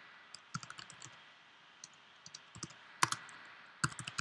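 Typing on a computer keyboard: scattered key clicks in short runs, with a few sharper keystrokes about three seconds in and near the end.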